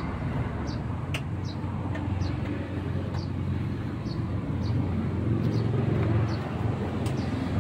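Heavy truck's diesel engine idling steadily, with short high chirps repeating about twice a second over it.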